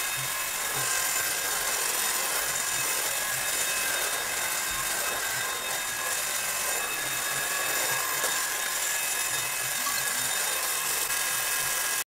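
Cordless 2-in-1 stick vacuum cleaner running steadily, its motor giving a high whine over the rush of suction as it is pushed along a wooden floor.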